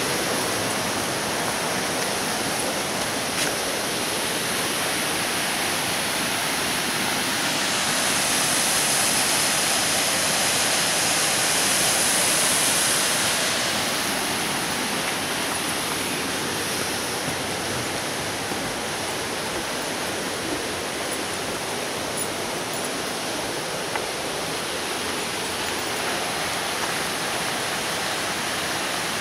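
Shallow rocky creek rushing over stones: a steady wash of running water that swells a little about a third of the way in.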